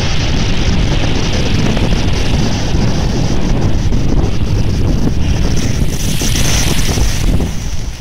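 Heavy storm surf breaking and washing up a shingle beach, with strong wind buffeting the microphone. The hiss swells about six seconds in and drops away briefly near the end.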